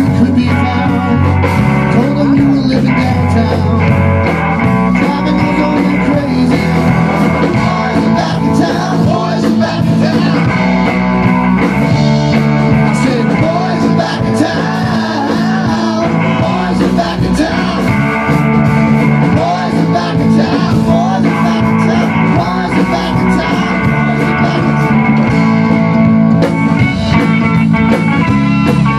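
A rock band playing live: electric bass, electric guitar and a Tama drum kit, with sung vocals over the top.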